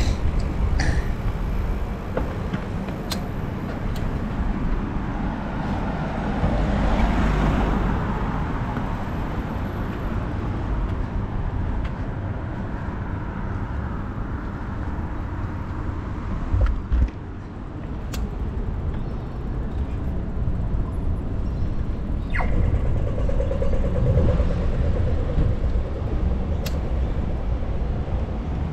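Wind buffeting the microphone and road noise while riding a bicycle along a footpath beside a road, with a vehicle swelling past about seven seconds in and a few light rattles and clicks from the bike.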